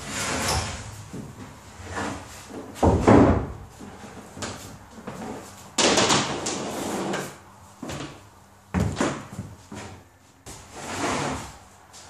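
Wooden floor panel being worked into place: irregular scraping, sliding and knocking of wood on wood, with the loudest thump about three seconds in.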